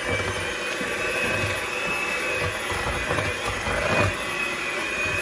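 Electric hand mixer running steadily, its beaters churning thick cream cheese batter as an egg is beaten in, a constant motor whir with a faint high whine.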